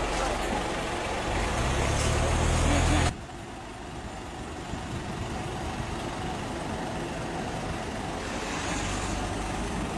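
Vehicle engines and road traffic noise, loud with a low rumble for about three seconds, then cutting abruptly to a quieter steady traffic hum.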